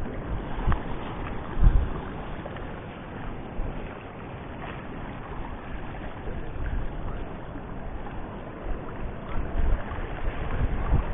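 Wind buffeting the microphone over the wash of choppy sea on a rocky shore, with a few sudden low bumps, the loudest about two seconds in.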